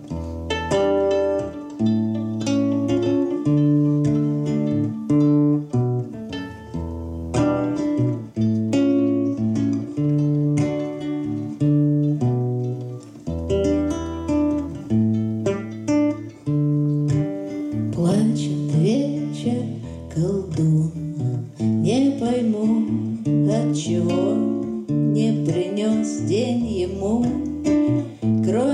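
Acoustic guitar strumming chords with a violin playing a melody over it. In the second half the violin line slides and wavers more.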